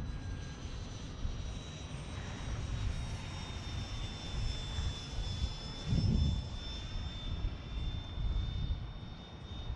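Freewing A-4 Skyhawk RC jet's 80mm electric ducted fan whining steadily as it flies overhead, with bursts of low rumble, the strongest about six seconds in.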